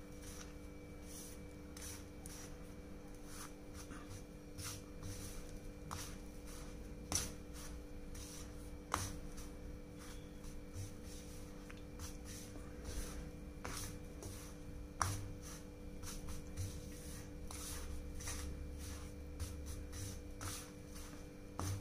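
Faint rustling and scraping of fingers stirring coarse ground lentil powder and chilli powder together on a plate, with a steady low hum underneath.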